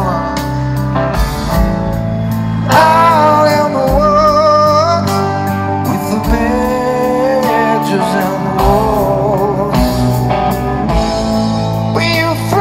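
Rock band playing live: a male lead vocal sung into a handheld microphone over guitars, the voice rising and getting louder about three seconds in.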